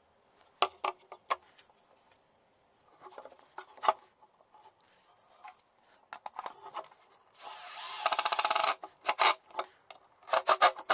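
Wooden blocks and boards knocking and clattering on a wooden workbench in short groups of sharp knocks. About two-thirds of the way through, a cordless drill drives a screw into the wood for about a second and a half, with a fast rasping pulse.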